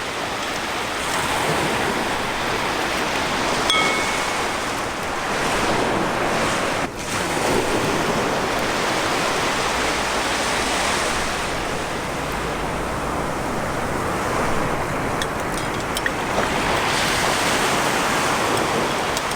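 Ocean surf washing onto the shore, swelling and ebbing every few seconds. A brief high tone sounds once about four seconds in.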